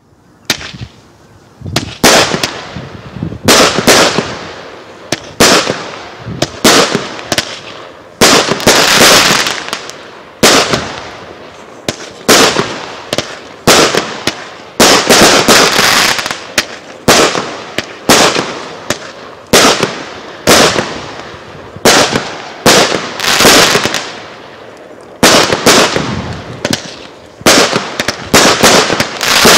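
Heron Cake 11 consumer fireworks cake, a multi-tube battery, firing its shots one after another: a sharp bang about every second or so, each followed by a fading crackle.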